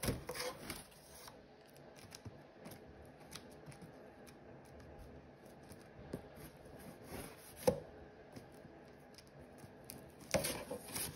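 Scissors cutting open a box: scattered snips and rasping scrapes, with a sharp click a little before 8 seconds and a louder flurry of cutting after 10 seconds.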